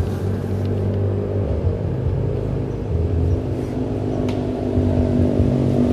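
An engine running with a steady low hum, growing gradually louder.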